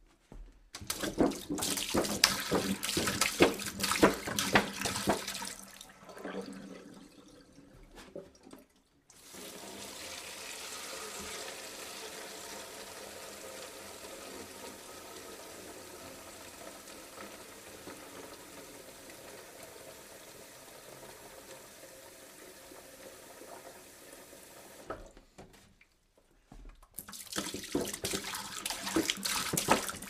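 Water poured from a jug in several pours. A splashy pour for the first few seconds tails off into a trickle. After a short break comes a long, even, steady stream of about fifteen seconds, and after another short break a splashy pour starts again near the end.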